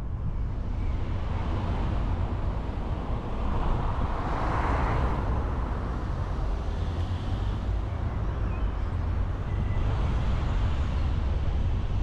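A car driving on a road: steady road and engine rumble. A louder rush of noise swells and fades about four to five seconds in.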